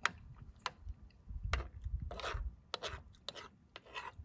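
A spoon clicking and scraping against a bowl as chili is eaten: two sharp clicks in the first second, then several short rasping scrapes.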